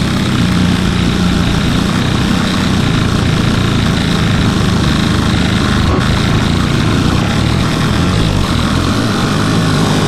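Black MIDI piano playback: thousands of synthesized piano notes sound at once and blur into a loud, steady, noisy drone with a heavy low rumble, more like an engine than a tune.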